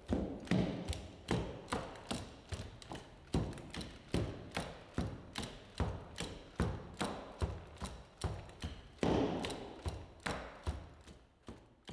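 Cassie bipedal robot's feet thudding and tapping on uneven slabs as it steps in place, a steady run of footfalls about two a second.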